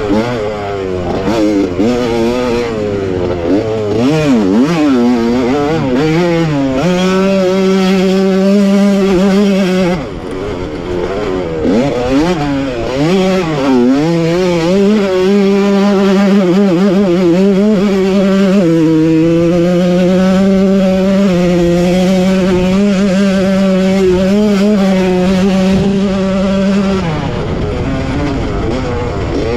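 1985 Honda CR125's single-cylinder two-stroke engine under race load, revving up and down as the throttle is chopped and reopened, then held flat out at high revs for several seconds at a time, with a small drop in pitch about two-thirds through.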